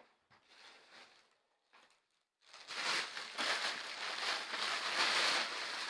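Plastic wrapping rustling and crinkling as a handbag is handled and pulled out of its packaging. The crinkling starts about two and a half seconds in and stays dense and steady, after fainter scattered rustles.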